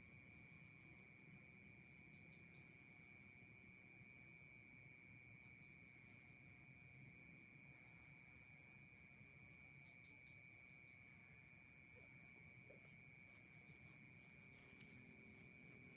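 Insects, crickets or similar, chirping at night in a fast pulsed train that stops about fourteen seconds in, over a steady high whine and faint low background hiss.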